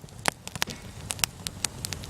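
Wood fire crackling, with irregular sharp pops and snaps, several a second, over a low hiss.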